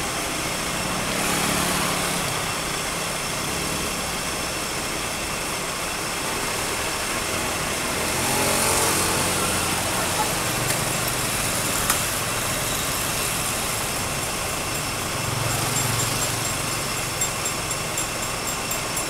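Steady outdoor background noise with a low engine hum that swells and fades three times, as if motor vehicles pass at a distance; a few small clicks near the end.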